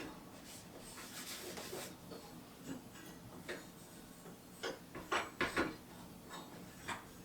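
Small handling sounds: a short stretch of rubbing about a second in, then scattered light clicks and knocks of objects being moved and set down.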